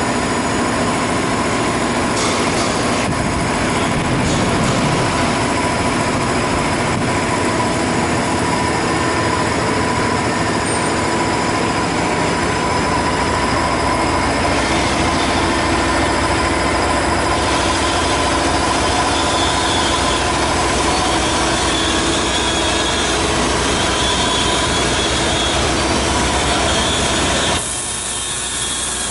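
Triangle folding machine for plastic film bags running, its rollers turning as film feeds through: a steady mechanical running noise with a constant hum. It becomes quieter near the end.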